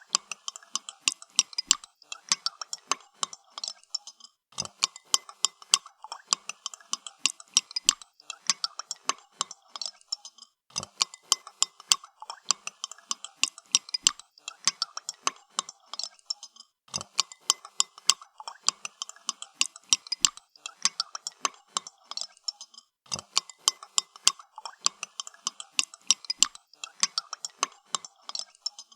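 Spoon stirring coffee in a cup, clinking quickly and repeatedly against the cup's sides in runs of about six seconds separated by brief pauses.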